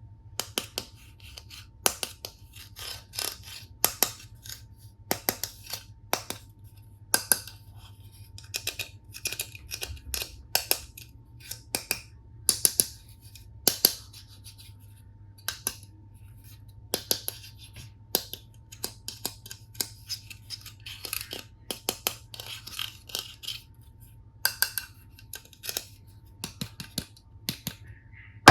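Handling of plastic toy tools and packaging: irregular clicks, taps and short crinkles, a few sharp knocks among them, over a faint steady hum.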